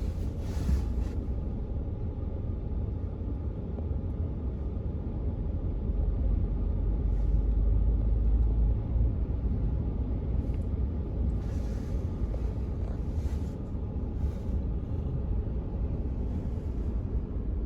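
Strong blizzard wind buffeting the microphone: a continuous low, uneven rumble with gusts, and brief hissy surges of blowing snow.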